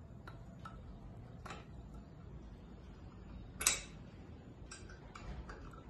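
Scattered small metallic clicks and clinks of a wrench and bolts on an air compressor's cylinder head as the head bolts are tightened, with one louder clink a little past halfway.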